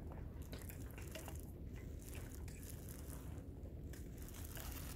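Quiet handling noises: faint rustles and light clicks as gloved hands turn a bent metal tube frame, over a low steady rumble.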